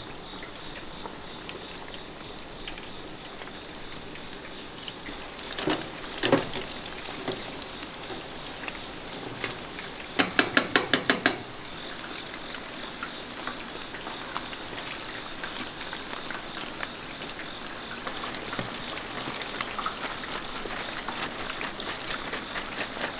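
Battered snail pieces deep-frying in hot oil, a steady sizzle that grows a little louder near the end. Two knocks come about six seconds in, and a quick run of about eight sharp taps about ten seconds in.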